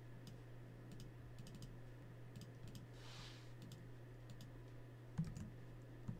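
Faint, scattered computer keyboard typing and mouse clicks over a steady low hum, with a soft thump about five seconds in.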